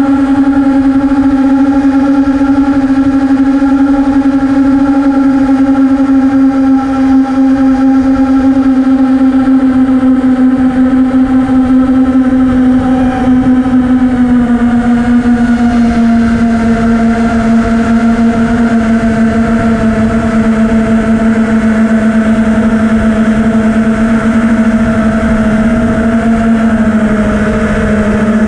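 FPV quadcopter's electric motors and propellers whining steadily in cruising flight, heard from the onboard camera over the rush of wind. The whine's pitch drops slightly about halfway through and again near the end.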